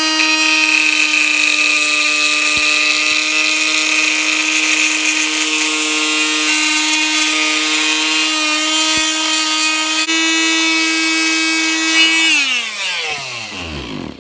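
Handheld power tool running at a steady high speed, cutting down a part, with a gritty high hiss over its motor whine. About twelve seconds in it is switched off and its whine falls in pitch as it spins down to a stop.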